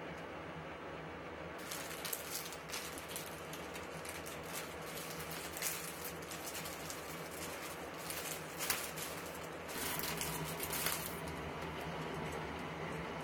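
Water in a pot on an induction hob crackling and bubbling as it heats toward the boil, over a steady low hum, with a few louder splashy sounds about two-thirds of the way through.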